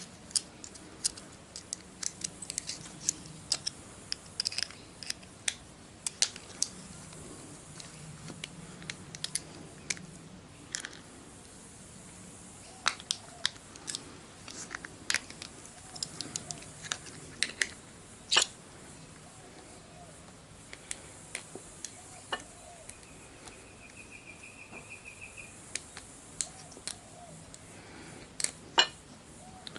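Irregular small metal clicks and scrapes as a Spirolox spiral retaining ring is prised out of a piston's wrist-pin bore, fiddly work that keeps slipping. A short buzzing rattle comes near the end.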